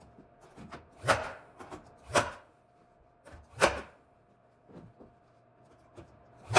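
A series of sharp knocks on wood during trim work: three loud ones roughly a second apart, the third the loudest, then fainter taps and another loud knock at the end.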